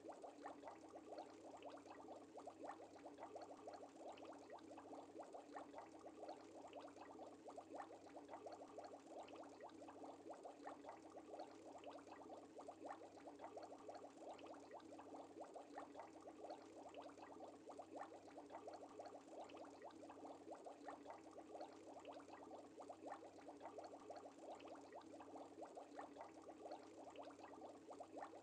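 Faint, steady bubbling of an aquarium's rising air-bubble stream, a dense crackle of small pops, with a low hum underneath.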